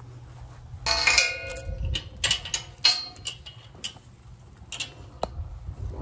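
Metal clanking and rattling of a steel corral gate and its latch hardware being handled: several sharp clanks with short ringing tones, the loudest about a second in.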